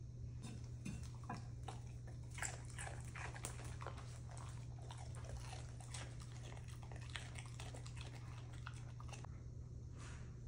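A dog chewing and crunching slices of raw radish: a run of irregular crisp crunches that stops about a second before the end.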